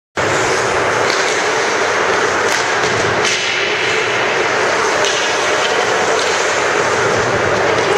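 Ice hockey play heard from rinkside: a steady scraping rush of skate blades on ice and rink noise, with a few sharp knocks of sticks and puck.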